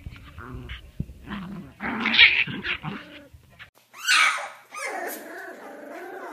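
Puppies growling and yipping in short, uneven bursts as they play-fight. A small puppy tussles with a larger dog, then two boxer puppies take over, with a sharp yelp just after the middle and wavering growls after it.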